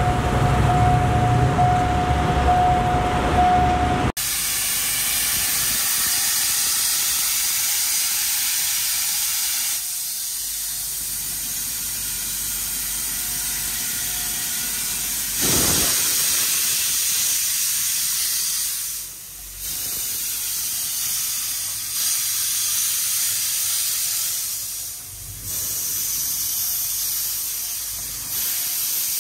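Steam locomotive hissing steam: a loud, steady hiss with a brief louder gust about fifteen seconds in and two short lulls later. It is preceded for about four seconds by a diesel railcar's engine running with a steady tone, which cuts off suddenly.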